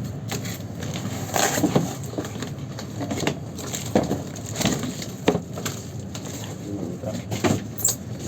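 Layered parcel packaging being unwrapped by hand: irregular crinkling, crackling and rustling of plastic and cardboard.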